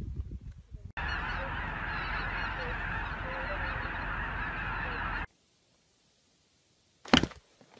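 A large flock of geese calling all at once, a dense chorus of honking for about four seconds that cuts off suddenly. A brief, sharp, loud sound comes near the end.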